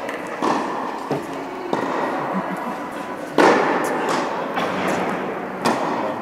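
Tennis balls struck by rackets and bouncing on a hard indoor court: several sharp pops, each followed by an echo off the hall's walls. The loudest hit comes about three and a half seconds in.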